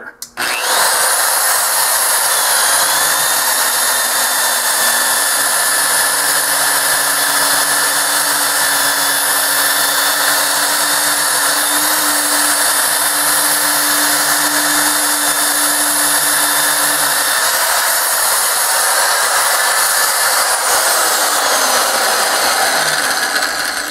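Magnetic drill motor starting about half a second in and running steadily as a 9/16-inch annular cutter bores through steel plate, with a high whine on top. A lower hum beneath it drops out about two-thirds of the way through.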